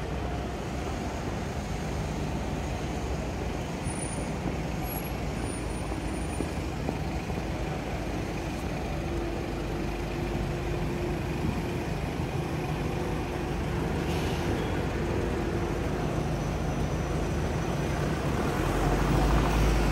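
Steady road traffic on a city street, with vehicles running past. A heavier vehicle's low rumble swells shortly before the end.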